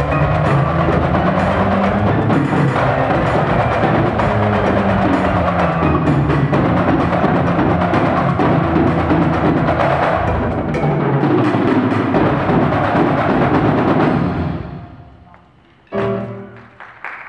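Percussion ensemble playing a fast, dense pattern of sharp taps on tabletop percussion over low pitched notes. It fades out about fourteen seconds in, and a single sharp stroke rings out near the end.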